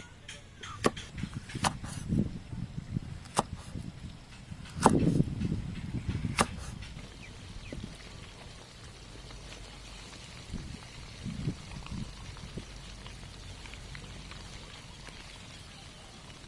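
Cleaver chopping red chillies on a wooden chopping board, sharp chops every second or two. About seven seconds in this gives way to catfish pieces frying steadily in hot oil in a wok.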